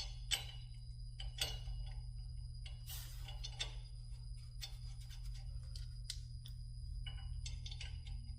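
Irregular light metallic clicks and taps of wheel-spacer hardware being handled and fitted onto the car's wheel hub, over a steady low hum.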